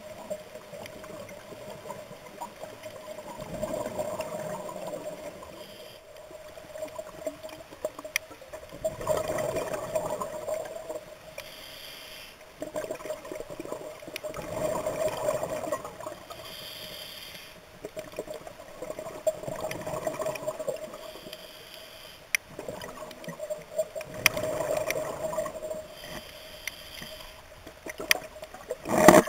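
Scuba breathing heard underwater: a swell of bubbling exhaled through a regulator about every five seconds, with a shorter hiss of inhalation between, over a steady hum. A loud knock comes near the end.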